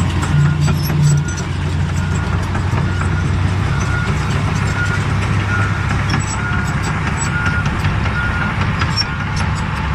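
Large crawler bulldozer's diesel engine running steadily under a low drone, with a reversing alarm beeping repeatedly at one pitch, the machine backing up. Scattered short metallic clanks from the tracks and gravel run through it.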